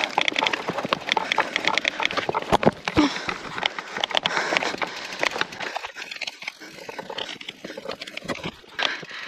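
Gravel bike jolting over a rocky trail: a dense, irregular clatter of knocks and rattles with tyres crunching on stones, heard through the handlebar-mounted camera. It quietens somewhat in the last few seconds.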